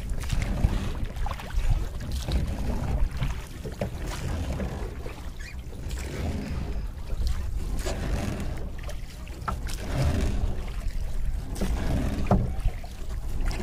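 Wind rumbling on the microphone over the splash and wash of water as a wooden rowboat is rowed, with a few light knocks from the oars.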